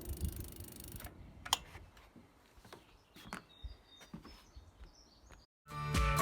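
Faint outdoor background with a few scattered light clicks and short high bird chirps, then music starts about a second before the end and is the loudest sound.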